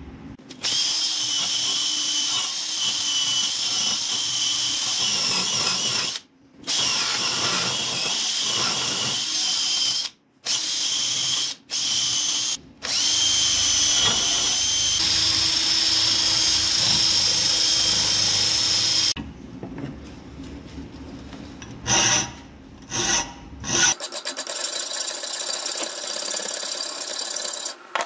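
Handheld electric power tool running with a steady whine in long runs, stopping briefly four times, then in short bursts. Near the end it gives way to a thinner, scratchy scraping sound.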